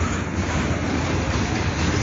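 Freight train of boxcars rolling past close by at speed: a steady, loud rumble of wheels on rail.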